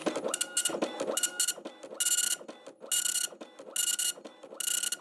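Dot-matrix printer printing: the print head buzzes across in short passes, roughly one pass every second, with a brief pause between lines.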